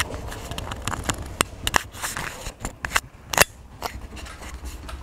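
A string of irregular sharp clicks and snaps, the loudest a little over three seconds in.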